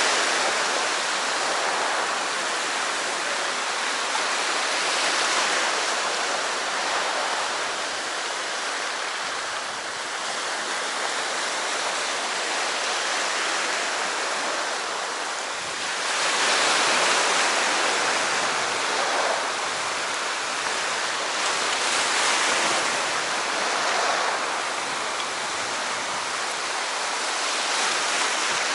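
Surf on a sea shore: a steady rush of waves that swells louder now and then as breakers come in.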